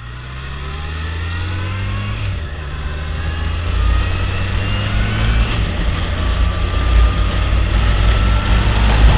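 Yamaha FJR1300 motorcycle's inline-four engine accelerating away, its pitch rising again and again as it pulls through the gears, with wind rumble on the microphone growing louder as speed builds.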